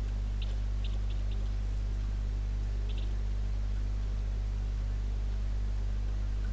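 Steady low electrical hum with a faint hiss in the recording. A few brief, faint high squeaks come in a small cluster near the start and again as a pair about three seconds in.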